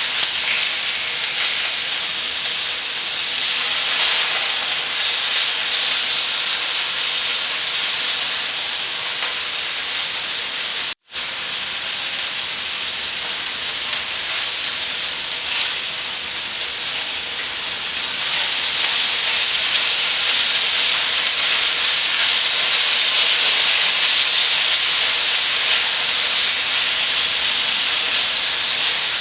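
Marinated sliced ribeye beef searing in hot oil in a pan: a steady, loud frying sizzle that swells a little in the later part. The sound drops out for an instant about a third of the way through.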